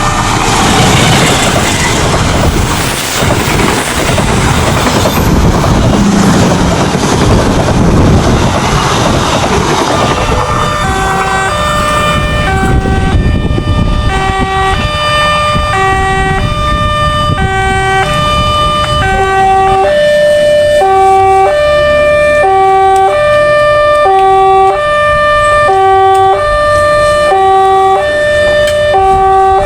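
Level-crossing electronic warning siren sounding in steady tones that alternate about once a second, hoarse-sounding. For about the first ten seconds a passing train's rumble and rail noise largely drowns it, then the siren carries on alone.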